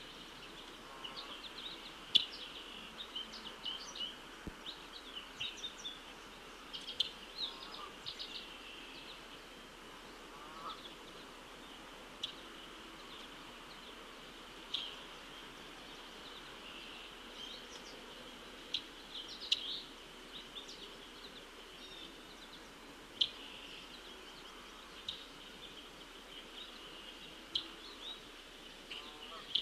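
Birds giving short, sharp chirps every second or so, over a steady high-pitched drone.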